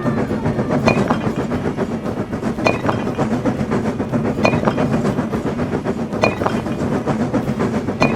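Train running on the rails: a steady rumble and clatter, with a sharper clack about every two seconds.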